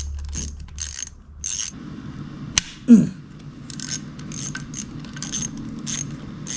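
A ratchet wrench clicking through repeated back-swings as 8 mm bolts are undone on the motorbike's engine case. The clicking pauses briefly about two and a half seconds in, where there is a single sharp click and a short falling squeal, then it carries on at about two to three strokes a second.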